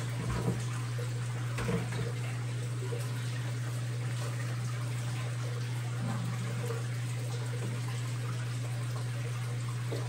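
Aquarium water circulating: a steady trickling and bubbling over a constant low pump hum. Two light knocks come in the first two seconds.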